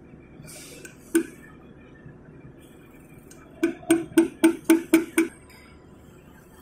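Hammer tapping a steel centre punch, metal on metal, to punch-mark the line of a keyway on a workpiece. There is one tap about a second in, then a quick run of seven taps, about four a second, each with a short ring.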